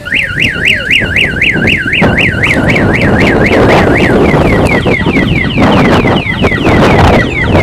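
A truck's electronic reversing siren wails up and down about three to four times a second, then switches about halfway through to a quicker run of falling chirps. The truck's engine runs underneath as it backs up.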